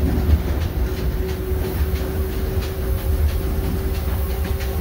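Narrow-gauge passenger train rolling along, heard from aboard an open excursion car: a steady low rumble with a light, irregular clicking of the wheels on the rails and a steady hum.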